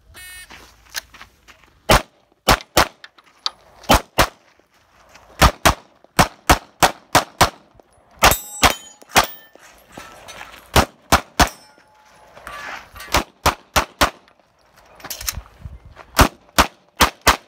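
Shot timer's electronic start beep, then a string of Glock pistol shots, mostly fired in quick pairs with short pauses between target arrays, and steel targets ringing when hit.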